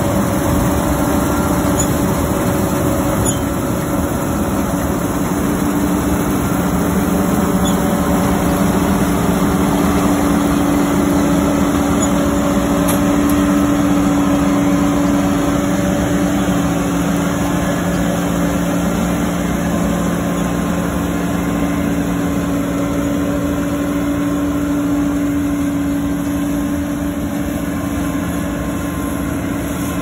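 John Deere combine harvester running, a loud, steady machine hum, with a second, lower tone joining about seven seconds in.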